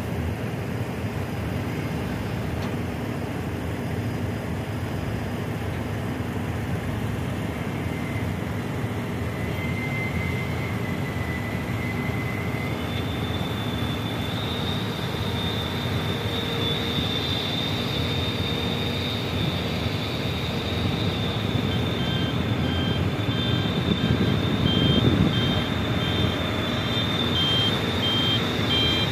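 Dump truck's diesel engine running steadily while its tipper body is raised to dump soil. A high steady whine joins about halfway through, and near the end a reversing alarm beeps in short, evenly spaced pulses while the engine grows briefly louder.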